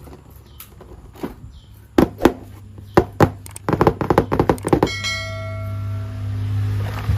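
Hard plastic toy parts and packaging handled: separate clicks and knocks, a quick run of them about four seconds in. A steady low hum follows, starting about five seconds in.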